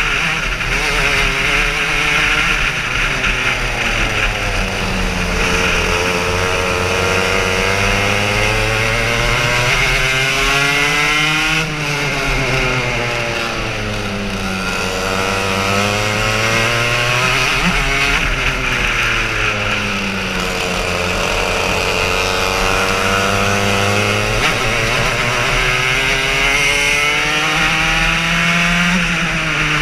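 Racing kart engine heard onboard at full throttle, its note climbing steadily along the straights and dropping sharply as the driver lifts for corners, several times over, with a steady hiss over it.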